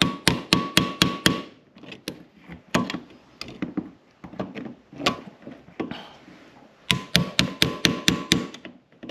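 Hammer striking a loose conduit locknut to drive it tight on an electrical box: sharp metallic taps with a short ring. They come in two fast runs of about four or five a second, near the start and again about two-thirds through, with a few scattered taps in between.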